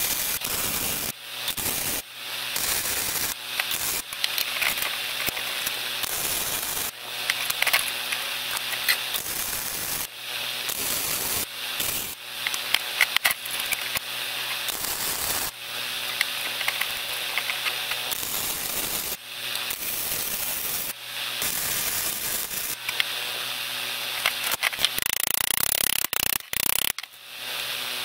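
Wire-feed welding arc crackling and hissing in a series of short welds a few seconds each, broken by brief pauses: plug welds filling drilled holes to fix a steel plate onto sheet steel.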